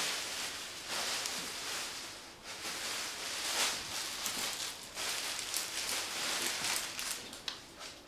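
Rustling as fleeces are handled and sorted, coming in irregular swells with a few sharp crinkles near the end.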